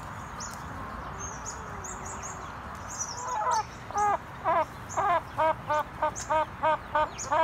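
Backyard hens in their pen: a soft steady hiss with faint high chirps. About three seconds in, one hen starts a loud repeated call that quickens from about two notes a second to three.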